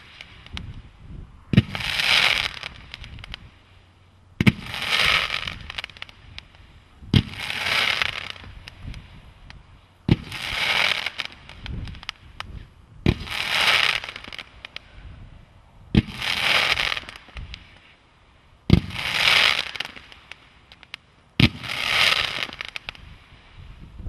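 Midnight Peacock firework cake firing its fanned mines in volleys. There are eight sharp thumps, about one every three seconds, and each is followed by about a second of crackling fizz.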